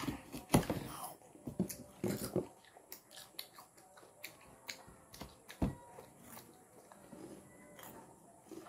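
Close-up mouth sounds of people biting into and chewing fresh, crisp tambis (water apples). A few sharper crunches come in the first couple of seconds and again past the middle, with fainter chewing and small clicks between.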